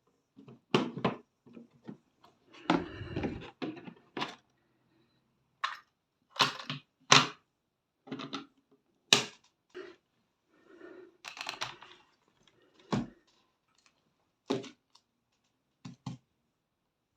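Scattered sharp clicks, taps and knocks of hard plastic and small tools as a laptop is handled and its case worked open, with two short scraping stretches, about three seconds in and about eleven seconds in.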